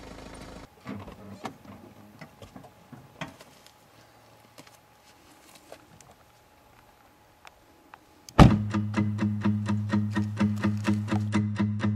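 Quiet car-door handling and a few light clicks and knocks as someone steps out of a car, then, a little past eight seconds in, a guitar comes in with an even, rhythmic strum that is much louder than what came before.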